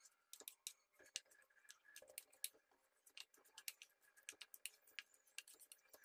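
Faint, irregular clicks and scrapes, a few a second, of a spatula against a kadhai as grated coconut and jaggery are stirred together.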